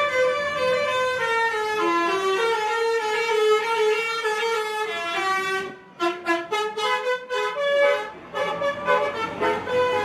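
Basuri 'telolet' musical bus horn playing a tune: a run of long held notes stepping up and down, then, after a brief break about six seconds in, a quick run of short toots and more held notes.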